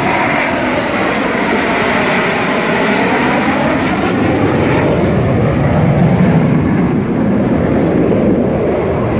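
A Dassault Rafale's twin M88 turbofans roar as the jet passes low overhead on its landing approach, with a sweeping, phasing whoosh. The high hiss fades over the second half, leaving a lower rumble as it moves away.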